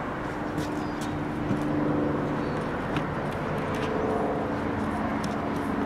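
A vehicle engine running steadily in the background, with a few faint clicks over it.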